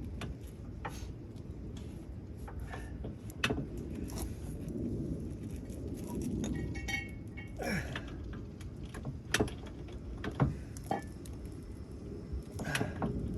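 Hand tools clinking and knocking against metal as they work on the rear hub's mounting bolts: irregular sharp clicks and knocks, one with a brief metallic ring, over a steady low background rumble.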